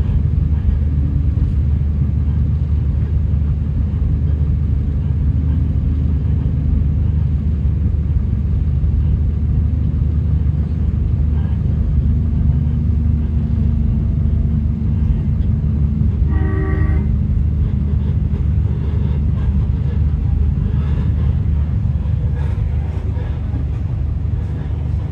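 Steady low rumble of an Endeavour diesel railcar running along the line, heard from inside the carriage. A short pitched tone sounds once, lasting about half a second, about two-thirds of the way through.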